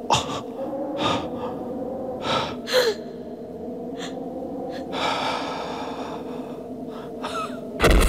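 A person gasping and breathing hard in several sharp, ragged breaths, over a low steady drone. A loud sudden thump comes right at the end.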